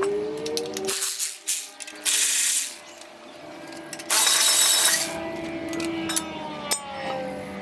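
Cordless impact gun spinning off bolts on an SR20DET engine's exhaust side in two short bursts, about two seconds in and about four seconds in, with clicks and clinks of hand tools between them.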